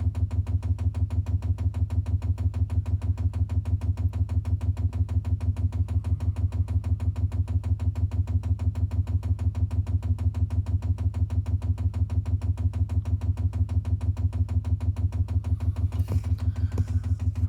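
Chinese diesel heater's fuel dosing pump ticking rapidly and evenly, about six pulses a second over a low hum, as it primes the line with kerosene. A few light knocks of handling sound near the end.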